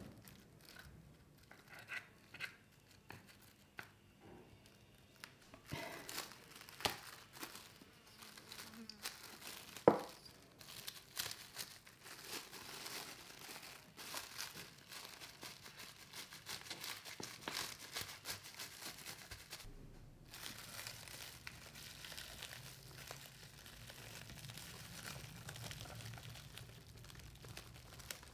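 Plastic cling wrap crinkling and rustling as it is folded over and pressed onto rice packed in an empty Spam can. A few light taps in the first few seconds, then continuous crackling with small clicks, and one sharper click about ten seconds in.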